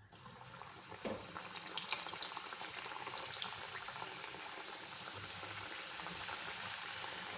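Mawa gujiya (khoya-filled pastry) deep-frying in hot oil in a kadhai, a steady sizzling hiss. It starts suddenly and crackles and pops sharply for the first few seconds, then settles into an even sizzle.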